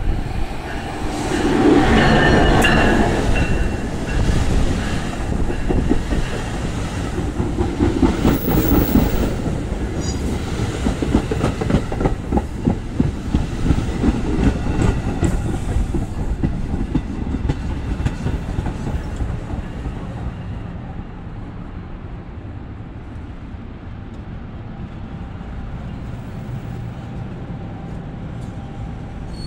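NJ Transit locomotive and multilevel passenger cars passing close by: a loud rush as the locomotive goes past about a second in, then a rapid clickety-clack of wheels over the rails as the cars follow, easing after about twenty seconds into a steadier rumble.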